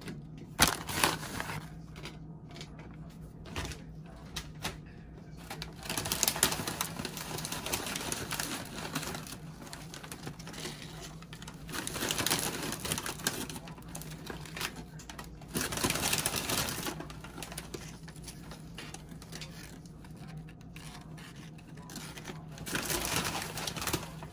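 Crisp tortilla chips clicking and crackling as they are handled and laid by hand onto a metal baking sheet, in several short bursts of rustling with sharp clicks between.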